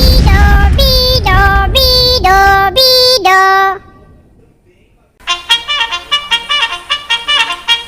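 Two alarm tones from the SnoozPuzzle alarm app. First comes a melody of held notes stepping up and down, which stops about three and a half seconds in. After a short pause, a fast tune of short, repeating notes starts.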